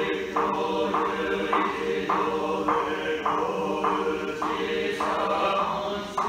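Buddhist priests chanting a sutra: an even recitation at nearly two syllables a second over a sustained drone of voice.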